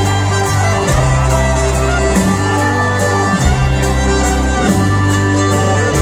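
Live country band playing an instrumental passage with no singing: fiddle over a bass line that changes note about once a second, with steady drum hits.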